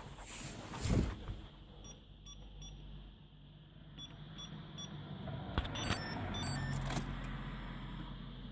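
A car: a thump, a few short high electronic beeps, then a steady low hum of the car running from about halfway through.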